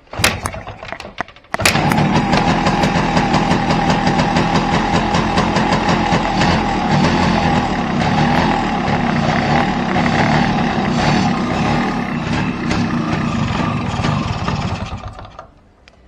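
A 1997 Yamaha RXG's single-cylinder two-stroke engine. After a few clicks it starts about one and a half seconds in and runs, struggling to run with a suction sound, then dies away near the end. The owner puts this down to a vacuum leak leaning out the mixture, most likely at the powerbox pipe.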